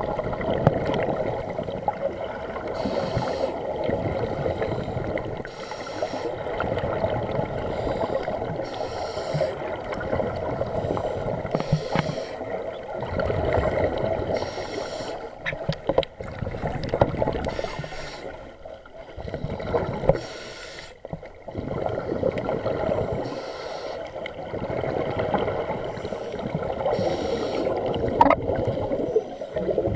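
Underwater sound through an action camera's waterproof housing: a steady muffled water rush, broken every few seconds by short hissing bursts of scuba regulator exhaust bubbles.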